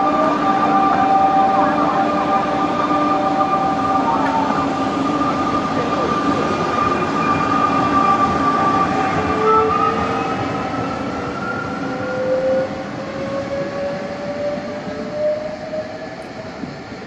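Electric regional train pulling out and accelerating away: the traction motors' whine rises in pitch over the second half and fades as the train recedes.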